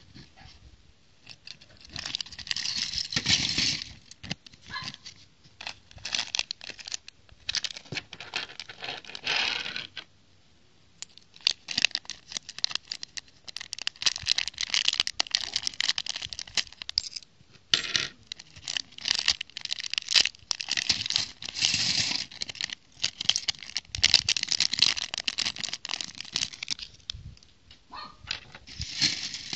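Thin plastic parts bags crinkling and being torn open, with small plastic building bricks clicking and clattering as they spill onto a plastic plate, in repeated bouts with a short pause about ten seconds in.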